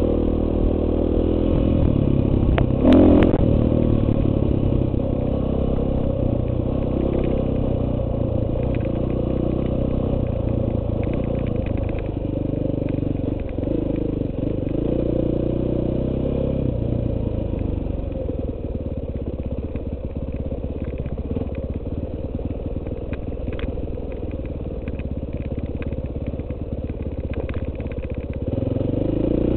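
KTM 450 EXC's single-cylinder four-stroke engine running under a trail ride, the throttle opening and closing as it goes. It eases off in the second half and picks up again near the end. Scattered knocks and clicks from the bike cut through it, the loudest about three seconds in.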